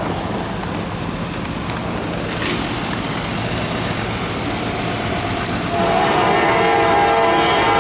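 Steady rumble of an approaching Norfolk Southern diesel freight train, then from about six seconds in the locomotive's air horn blows a long, loud chord.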